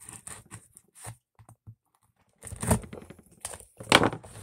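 Knife cutting and tearing packing tape on a cardboard package: a few short, scratchy bursts, a brief pause, then louder scraping and ripping, loudest about four seconds in.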